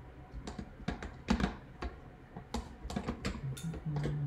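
Irregular light clicks and knocks of kitchen utensils against cookware: a ladle tapping and scraping in a pot and bowl as curry is served, and a rice paddle at the rice cooker, about two or three knocks a second.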